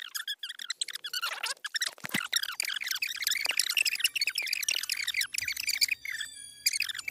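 Animated-film dialogue played back many times faster than normal, so the character voices become a fast, high-pitched, chirping chatter with almost no pauses.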